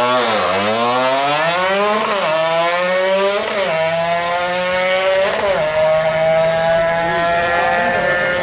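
Yamaha F1ZR two-stroke drag bike engine, bored to 128 cc and running a Honda Grand CDI, accelerating hard through the gears. Its pitch climbs, drops sharply at upshifts about two, three and a half and five seconds in, then climbs slowly after the last shift.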